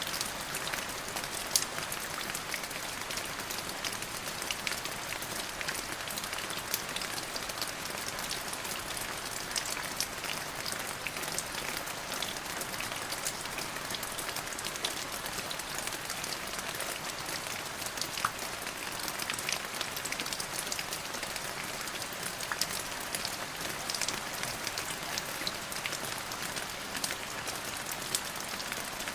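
Steady rain falling, a continuous hiss with many close, distinct drop ticks spattering on a surface.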